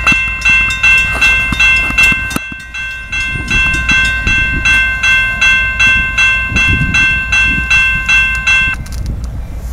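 Railroad grade-crossing warning bell ringing rapidly at about two strokes a second, warning that a train is approaching. It stops near the end.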